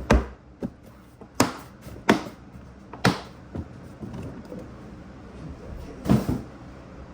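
Packaging being handled while unboxing an RC truck: an irregular series of about seven sharp knocks and clacks spread over several seconds, the loudest near the start and about six seconds in.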